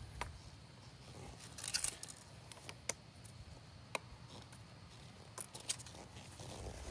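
Scattered sharp plastic clicks and taps as propellers are pressed and twisted onto a DJI Matrice 4T drone's motors. There is a small cluster of clicks about two seconds in, then single clicks every second or so.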